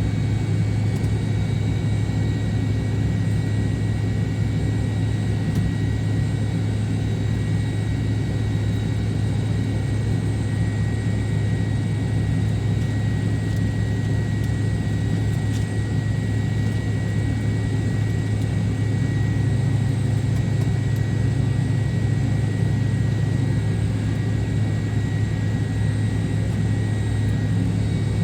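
MD-88 airliner's rear-mounted Pratt & Whitney JT8D turbofans running steadily, heard inside the cabin: a constant low hum with a faint steady whine above it.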